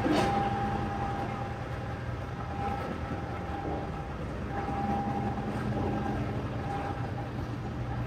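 Steady low engine rumble of a car ferry, with a higher hum that comes and goes and a short knock at the very start.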